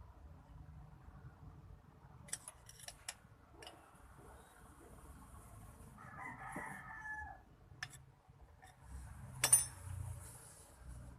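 Several sharp clicks and a hard knock from hand work on the car's brake parts, the knock the loudest sound, a little past the middle. Midway an animal calls once, about a second long, with a falling end.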